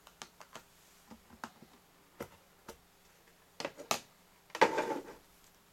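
Hard plastic clicks and taps as the clear plastic dome cover of an LED warning light bar is worked loose and lifted off its base, with a short, louder clatter near the end as the cover is handled on the table.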